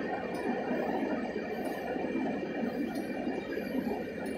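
Norfolk Southern freight train of rock cars rolling past, a steady rushing rumble of wheels on the rails.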